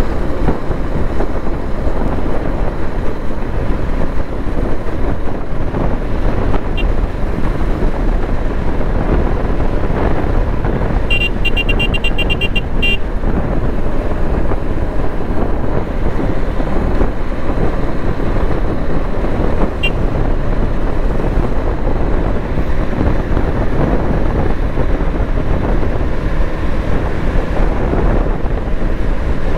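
Wind buffeting the microphone over the steady running of a KTM Duke 390's single-cylinder engine and tyres at an even highway cruise. About eleven seconds in, a vehicle horn sounds for about two seconds.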